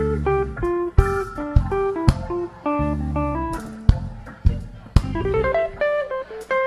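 Live band playing an instrumental piece: a picked guitar melody of separate notes over bass, with drum hits roughly once a second.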